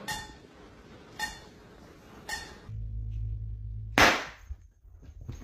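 Steel cooking pot tapped three times, about a second apart, each tap ringing briefly. A low hum follows, then a loud sudden noise about four seconds in.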